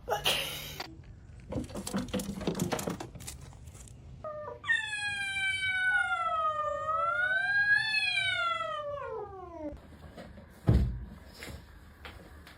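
A cat giving one long yowl of about five seconds, its pitch dipping, rising again and then falling away at the end. Before it come a few short rustling, clattering noises, and near the end there is one dull thump.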